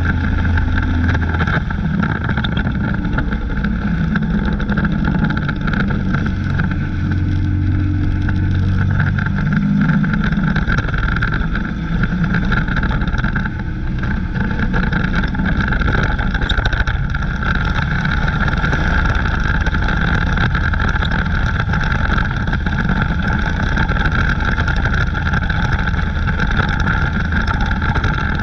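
Dirt-track race car's engine running hard at racing speed, heard from inside the car's cockpit. The engine note shifts through the first ten seconds or so, then holds steady.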